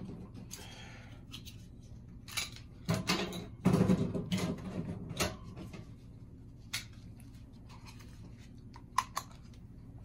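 Scattered clicks, knocks and light clattering of small objects being handled close to the microphone, busiest about three to four and a half seconds in, over a faint steady low hum.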